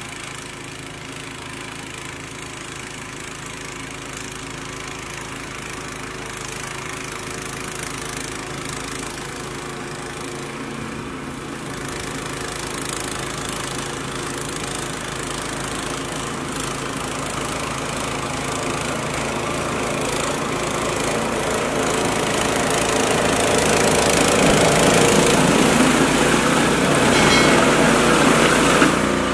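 Two-stage snow blower's engine running steadily under load as it clears snow, growing steadily louder as it comes closer, with the rush of snow thrown from the chute filling in near the end.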